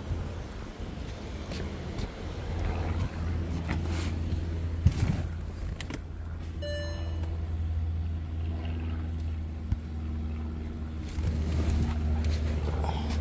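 Steady low hum of a 2014 Bentley Flying Spur running, with a short electronic chime from the car about six and a half seconds in and a couple of sharp clicks.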